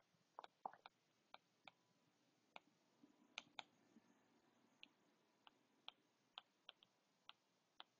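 Faint, irregular clicks of a stylus tapping a tablet touchscreen during handwriting, about two or three a second, over near silence.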